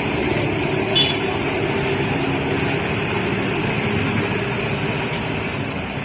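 Steady hum of road traffic and vehicle engines, with a short sharp click about a second in.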